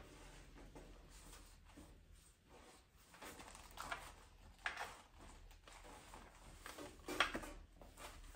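Faint intermittent handling noises with a few light knocks, the sharpest about four, five and seven seconds in.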